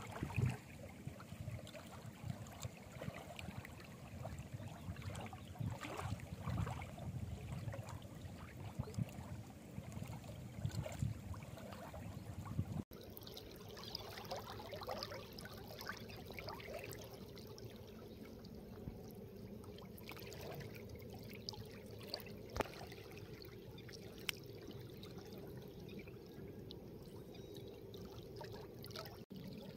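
River water lapping and trickling around a person standing waist-deep, with a few brief sharp ticks. The sound is rougher with a low rumble in the first half and quieter and steadier after about 13 seconds.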